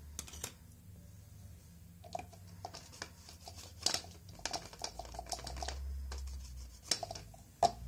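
Scattered light clicks and taps with some rustling, as small nail-stamping tools and items are handled and set down on the table mat. The two loudest taps fall about four seconds in and just before the end.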